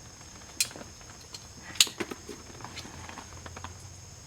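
Light metallic clicks and ticks of old flux-core welding wire being pulled out of a MIG welder's gun with vise grips, with two sharper clicks about half a second and nearly two seconds in.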